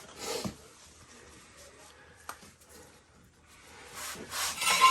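Handling noises of someone working on a vehicle: a brief rub, one sharp click about halfway through, then a louder scraping and rustling near the end that finishes with a short metallic ring.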